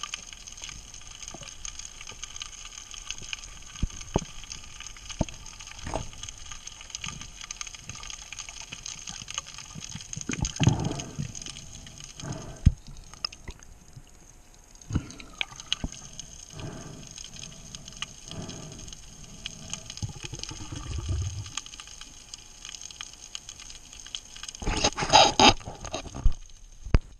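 Water heard through an underwater action camera's housing: scattered clicks and knocks, water sloshing and splashing in the middle stretch, and a loud rushing burst near the end, over a faint steady high hum.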